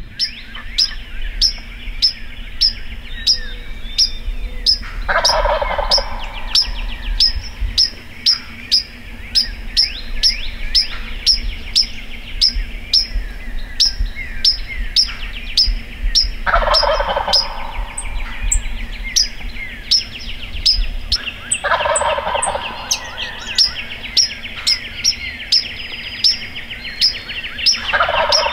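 Wild turkey gobbler gobbling four times at uneven spacing, each gobble a short rattling burst. A small bird chirps about twice a second throughout, with other birds singing behind.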